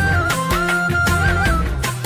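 Ringtone music: a high melody line stepping between a few notes over a held bass line, with a regular beat.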